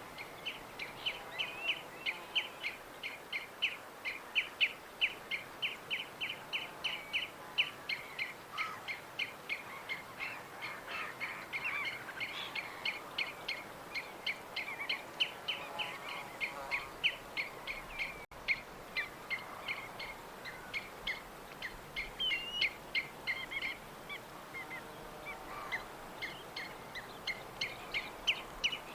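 Birds chirping continuously: rapid short high notes, about three or four a second, with fainter, lower calls behind them.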